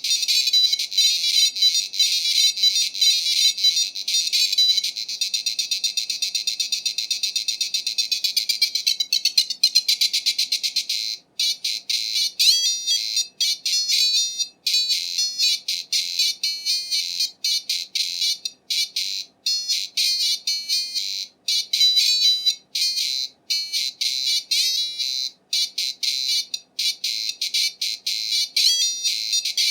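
IBM PC XT speaker playing demoscene music: shrill, buzzy square-wave tones in a fast pulsing rhythm, which turns choppier with many short breaks from about eleven seconds in.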